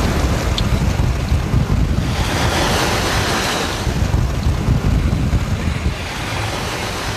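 Wind buffeting the microphone over the rush of the sea against a sailing yacht's hull under way. A louder hiss of spray and breaking water swells about two seconds in and eases off a couple of seconds later.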